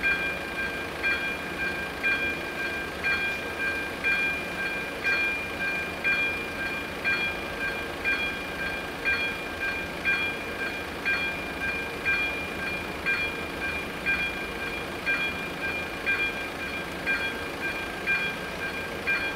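A Czech level crossing's electronic warning bell ringing over and over at an even pace, each stroke a bright ding, sounding while the crossing is closed for an approaching train.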